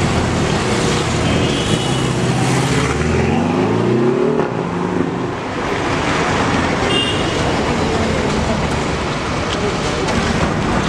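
Steady road traffic noise, with one vehicle's engine rising in pitch as it speeds up about three to four seconds in.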